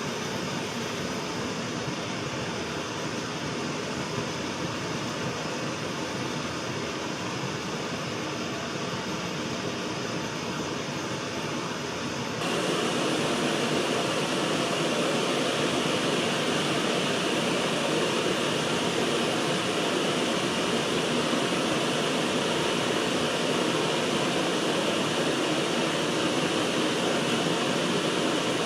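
Butane-propane canister stove burners running full, a steady hiss. About twelve seconds in it suddenly gets louder and brighter.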